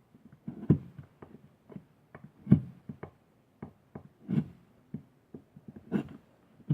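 Knife cutting a notch into a Western red cedar hearthboard: short cuts and knocks of blade on wood, a stronger one about every two seconds with fainter ticks between.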